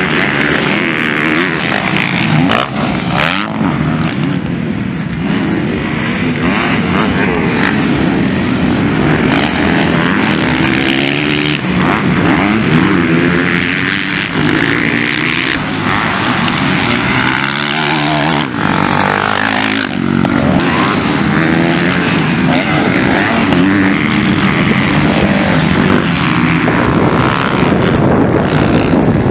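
Motocross bike engines revving hard on a dirt race track, their pitch rising and falling over and over with throttle and gear changes.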